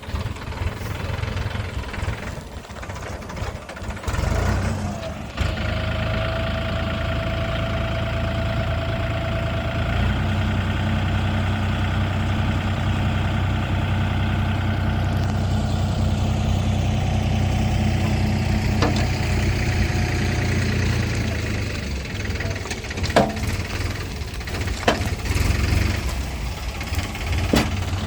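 Heavy diesel engine running steadily; its hum firms up about ten seconds in and eases after about twenty seconds. A few sharp knocks come near the end.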